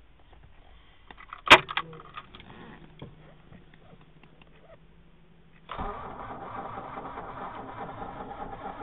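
A sharp click, then a faint low steady hum, then about six seconds in the starter cranks the Opel Monza A 3.0E's 3.0-litre straight-six, turning it over evenly without catching: the engine will not start after two years standing.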